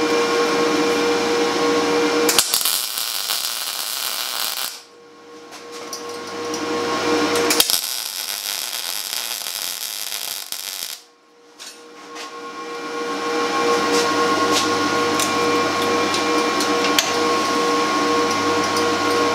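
MIG welder striking two tack welds on steel rod, the arc crackling and sizzling for about two seconds and then about three seconds. A steady hum runs underneath throughout.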